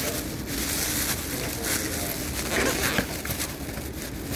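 Thin white plastic takeout bag crinkling and rustling as it is handled right against the microphone.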